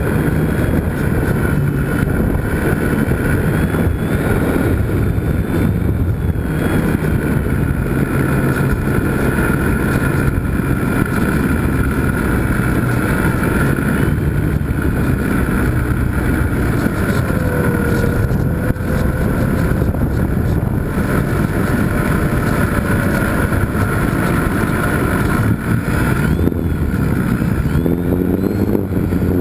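Onboard sound of a small electric RC airplane, a GWS Slow Stick: the propeller and motor whine over steady wind rush on the camera, the pitch drifting with throttle and rising near the end.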